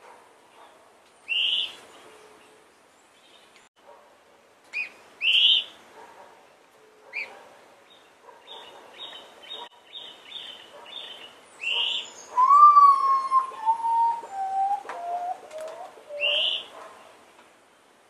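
Common potoo singing: a series of about six whistled notes, each lower than the last, starting about twelve seconds in and lasting some four seconds. Other birds call around it with short rising chirps several times and a quick run of high notes just before the potoo's song.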